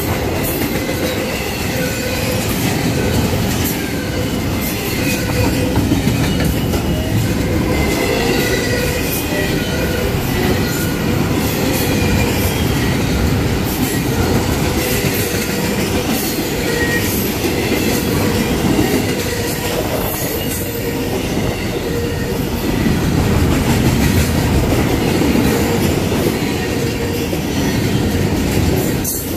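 Intermodal freight cars, piggyback trailers and doublestack container cars, rolling past at close range: a continuous heavy rumble of wheels on rail with scattered clicks and thin, wavering wheel squeals.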